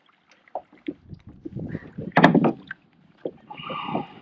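Knocks and rattles against a fishing kayak, with one loud thump about two seconds in and a short higher-pitched scrape near the end, as a small pike is handled aboard.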